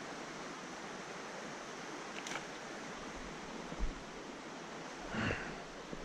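Steady rush of flowing stream water, with a couple of faint knocks and a brief louder noise near the end.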